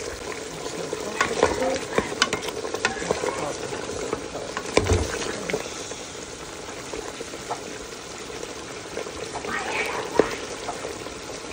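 Pot of cow foot stew sizzling and bubbling on the stove as it is stirred, with a few sharp knocks of the spoon against the pot, mostly in the first three seconds and once more near the end.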